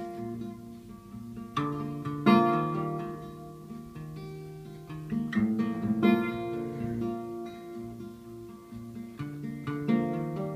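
Acoustic guitar playing a song intro: chords strummed and plucked, each left to ring out and fade before the next.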